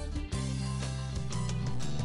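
Background music: steady sustained chords over a bass line, briefly dipping about a third of a second in.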